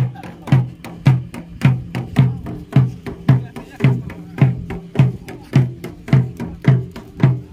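Music with a steady drum beat, a little under two strikes a second, over a held low tone.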